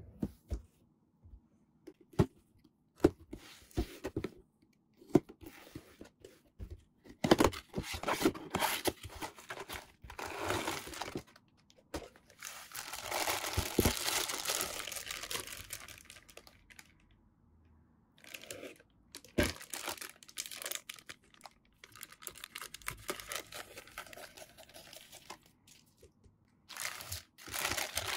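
A cardboard figure box handled and opened by hand, with sharp taps and short scrapes, then a clear plastic bag holding a figure and its parts crinkling and rustling in long stretches as it is pulled out and handled.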